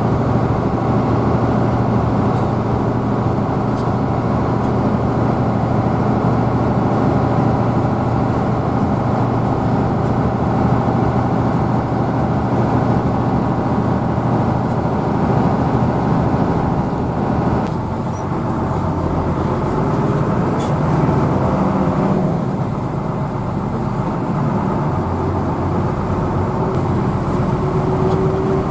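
Hino AK bus's diesel engine running under way, heard from inside the passenger cabin with road noise. The engine note drops about two-thirds of the way through, and a rising whine comes in near the end.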